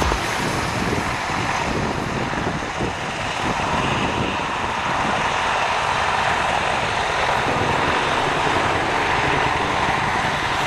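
Bell AH-1 Cobra helicopter in flight during aerobatic manoeuvres: its turbine engine and two-bladed rotor make a steady rushing noise with a fast low beating underneath.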